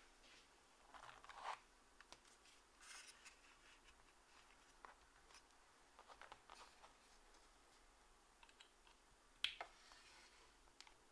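Faint, sparse clicks and short scuffing sounds from a mechanical keyboard being handled, with single keystrokes here and there rather than steady typing; the loudest click comes about nine and a half seconds in.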